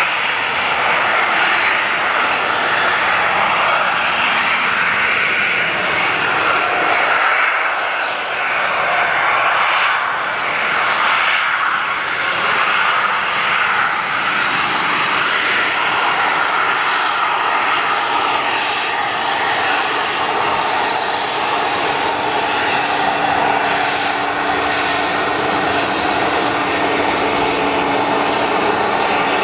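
Bombardier CRJ-series jet with two rear-mounted General Electric CF34 turbofans running at taxi power as it rolls past: a steady jet rush with a high whine that slides slowly down in pitch.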